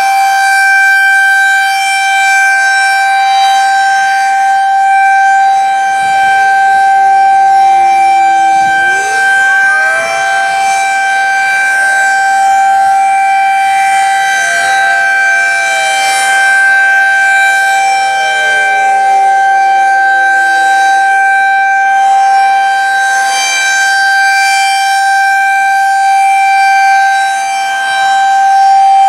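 Federal Signal 2001-SRN rotating outdoor warning siren sounding a steady alert tone, unusually high-pitched. Fainter older sirens in the background wail in the attack signal, falling and then rising in pitch twice.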